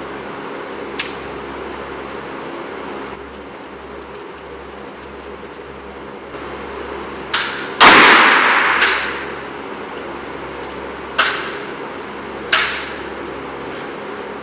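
Black powder revolver shots from Uberti Navy .36 cap-and-ball revolvers: about six sharp reports of differing loudness, the loudest about eight seconds in with a long echoing tail, over a steady low hum.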